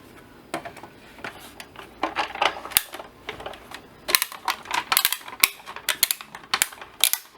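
Hand-cranked die-cutting machine being turned as a sandwich of cutting plates, metal dies and card stock passes through its rollers: an irregular run of sharp clicks and crackles that grows denser about two seconds in.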